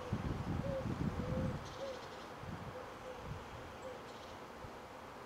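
Outdoor ambience: a flying insect buzzing with a wavering pitch, over wind rumbling on the microphone during the first second and a half.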